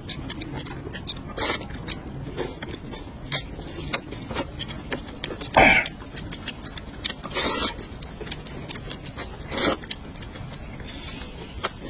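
Noodles being slurped and food chewed, in separate noisy bursts every one to two seconds, the loudest about halfway through.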